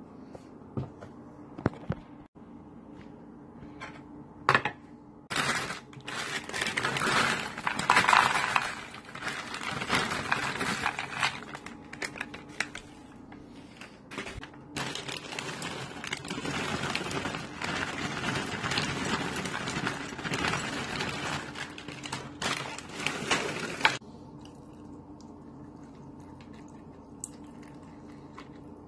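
Dry cereal poured from a crinkling plastic bag into a plastic bowl, the pieces rattling into the bowl in two long pours. Near the end it goes quieter as milk is poured in from a carton.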